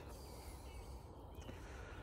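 Quiet outdoor background with a few faint, distant bird chirps.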